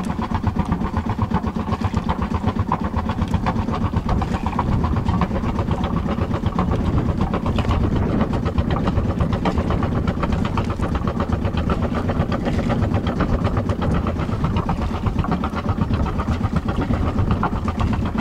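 Sailboat's auxiliary engine running steadily, motoring the boat with its sails furled, with a rapid even beat.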